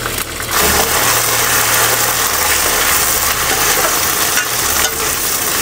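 Green peas sizzling in hot oil with fried onions in a steel wok over a small gas-cylinder stove, a steady sizzle that starts about half a second in, with a steady low hum underneath.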